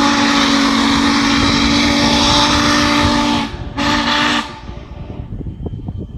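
Norfolk & Western J Class 611 steam locomotive's whistle blowing several tones at once, one long blast of about three and a half seconds and, after a brief break, a short one. A low rumble carries on after the whistle stops.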